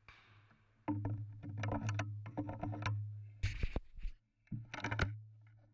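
Clicking and rustling handling noise from a shotgun being carried, picked up through a camera mounted on the gun, coming in several bursts with a sharper knock about three and a half seconds in.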